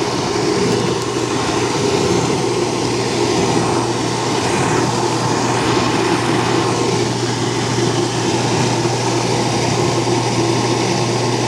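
Dishwasher drain pump running with a steady hum, pumping water out through the discharge hose during the drain cycle.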